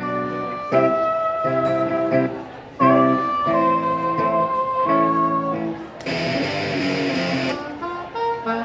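Live music: guitar chords with a wind instrument playing a held melody that bends in pitch. About six seconds in, a loud burst of noise lasts about a second and a half.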